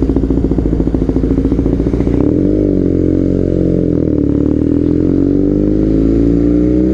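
BMW R nineT boxer-twin engine running through a local Villan aftermarket exhaust. It burbles with rapid pulses at low revs, rises and dips in pitch about two seconds in, then climbs steadily as the bike accelerates.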